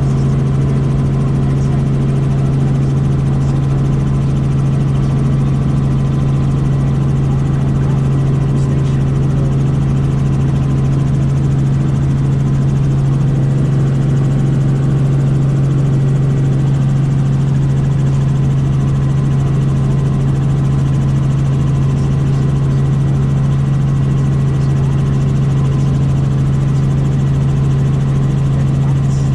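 Helicopter running at a constant pitch, its turbine and rotor drone loud and unbroken.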